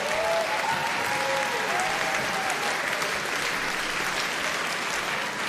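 Large audience applauding and laughing, a few voices calling out in the first two seconds.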